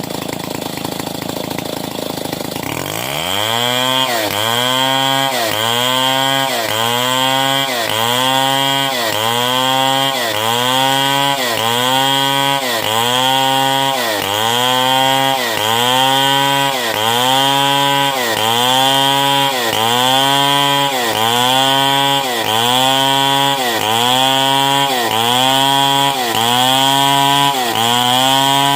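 Stihl 070 two-stroke chainsaw ripping lengthwise through a log. About three seconds in, the engine revs up to full throttle. Its pitch then dips under load and recovers in a steady rhythm, a bit more than once a second, as the chain bites into the wood.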